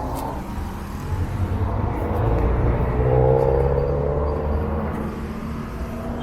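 Road traffic with the low rumble of a motor vehicle's engine passing, swelling to its loudest about three seconds in, then fading.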